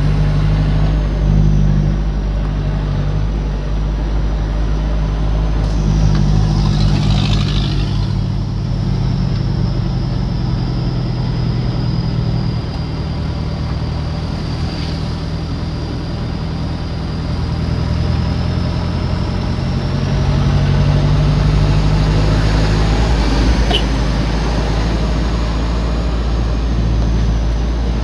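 Vehicle engine running with road and tyre noise, heard from inside the cab while driving on a rough road. The engine note shifts slightly up and down, with a brief hiss about six seconds in.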